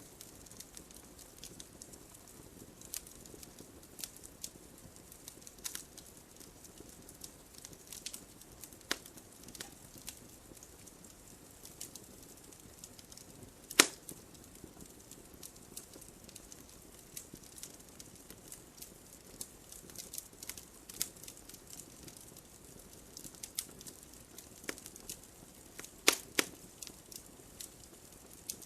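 Wood fire crackling: a soft steady hiss with irregular sharp pops and snaps. A loud single pop comes about halfway through, and two strong pops close together come near the end.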